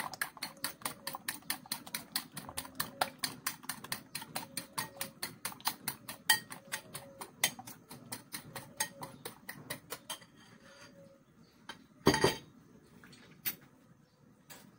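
Fork or spoon beating eggs in a ceramic bowl, clicking against the bowl in a quick steady rhythm of about five strokes a second, which stops about ten seconds in. A brief louder noise follows about two seconds later.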